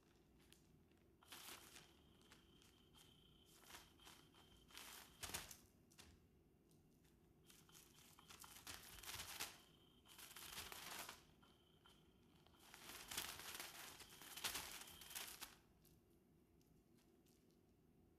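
Battery-powered 'Catch Me If You Can' cat toy running in about three spells of a few seconds each: the wand rustles and scrapes under its fabric cover, with a thin motor whine, while a kitten paws at the cover.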